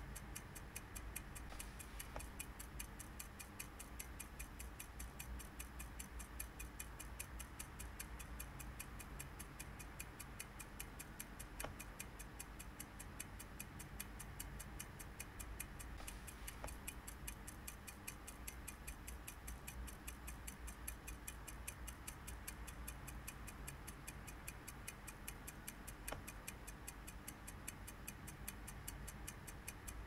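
Quiet clock ticking, steady and regular.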